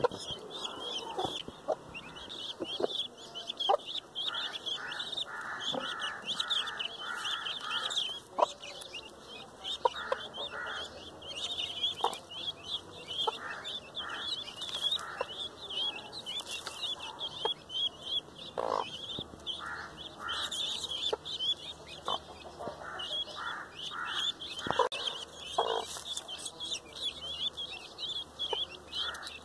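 Guinea fowl keets peeping: a dense, continuous run of short, high chirps, with occasional sharp clicks.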